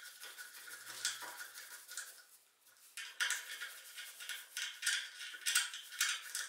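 A hex key turning socket-head cap screws out of a metal plate: small metallic clicks and scrapes in irregular clusters, with a short lull partway through.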